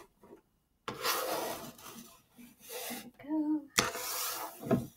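Tarot card piles being slid and rubbed across a tabletop, giving scraping, rubbing noise in two stretches, the second starting with a sharp tap just before four seconds in.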